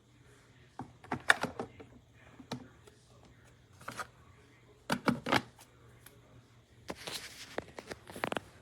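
Several clusters of sharp clicks and clattering knocks, as of hard objects being handled, over a faint steady low hum.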